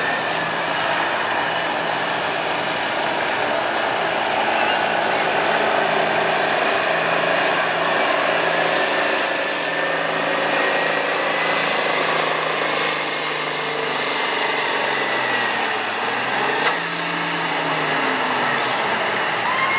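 Turbocharged Farmall farm-stock tractor's diesel engine running under heavy load as it pulls a weight-transfer sled down the track: a steady drone with a thin high whine over it. The engine note sags and recovers about three quarters of the way through.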